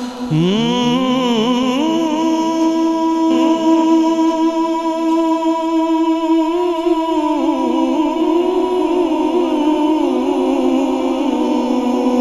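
Naat singing: a male voice holds and ornaments long wordless notes over a steady humming drone.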